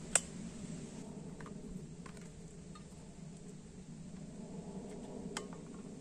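A few light clicks and knocks from a metal vacuum flask being picked up and handled, with a sharp click just after the start and another near the end, over a steady low background hiss.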